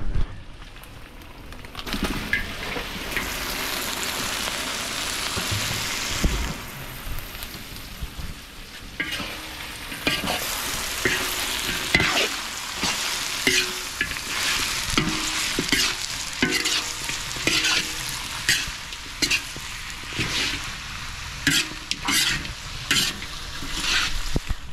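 Chopped marmot meat frying in a large wok, a steady sizzle that starts about two seconds in as the meat goes into the hot oil. From about nine seconds in, a metal spatula stirs it, scraping and knocking against the wok many times over the sizzle.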